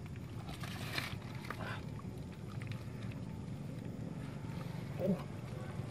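Hands squelching and sloshing in thick mud and muddy water while groping in a flooded hole, over a steady low background rumble. A short call-like sound about five seconds in.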